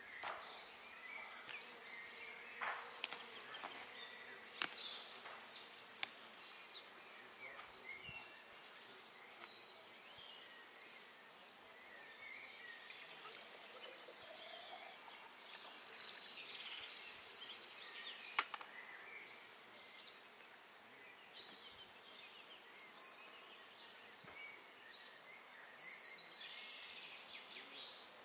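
Quiet outdoor garden ambience of honeybees buzzing, with scattered short high chirps and a few sharp taps.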